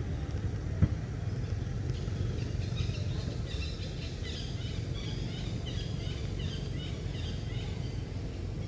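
Outdoor ambience with a steady low rumble, birds chirping from about two and a half seconds in until about seven seconds, and a single thump about a second in.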